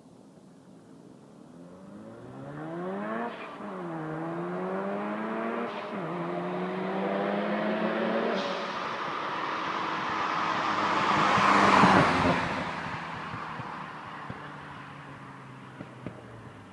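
Mazda RX-7 FC Turbo II's 13B turbo rotary engine, on a 3-inch straight exhaust with HKS Silent Hi Power muffler and test pipe, accelerating hard. Its pitch climbs and drops at three upshifts, then the car passes, loudest about twelve seconds in, and fades away.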